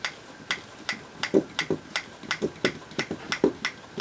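Harbo insemination syringe being worked to clear the air bubbles: a steady series of small sharp clicks, about three a second, some with a dull knock under them.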